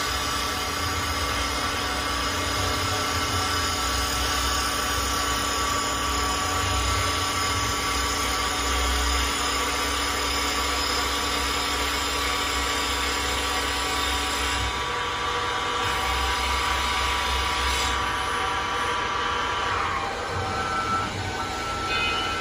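CNC wood lathe running while turning a wooden blank: a steady motor and spindle whine with a hiss of cutting. About 15 s in the sound thins, and near the end the whine glides down as the machine slows.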